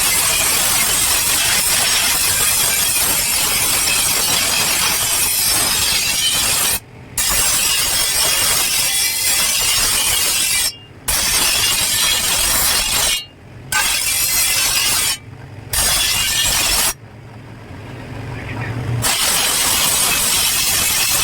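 Power grinder's abrasive wheel grinding the steel edge of a chaff cutter blade: a loud, harsh, steady hiss, broken off several times when the wheel comes off the metal, with a longer break near the end where only the motor's lower hum is heard before grinding resumes.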